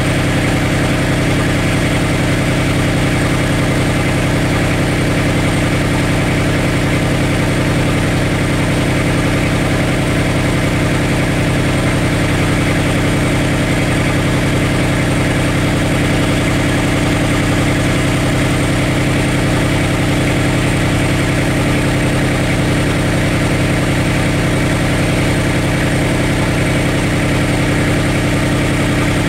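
Beta Marine 28 three-cylinder Kubota-based marine diesel idling steadily at low revs. It runs with no waterlock muffler, its exhaust piped straight from the exhaust elbow up to the exhaust port at the stern.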